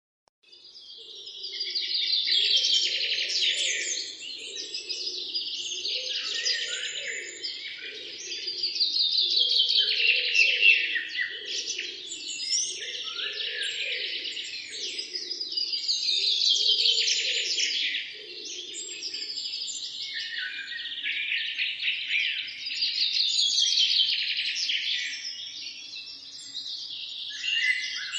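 Several songbirds chirping and singing over one another in a dense morning chorus, fading in over the first second or two.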